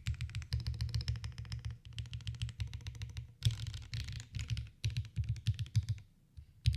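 Fast typing on a Graystudio Space80 custom mechanical keyboard with HMX Xinhai switches: quick runs of keystrokes broken by short pauses, stopping briefly near the end.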